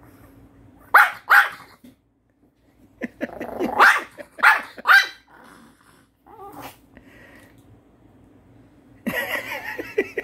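Small Pomeranian barking and growling at the owner to demand a treat of Korean melon. Two sharp barks come about a second in, then a quick run of three or four barks with growling, and a longer grumbling, barking stretch near the end.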